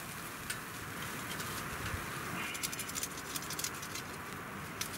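Scattered light clicks and taps from hands handling a carving tool and a wooden stick, a quick run of ticks past the middle, over a steady faint hiss.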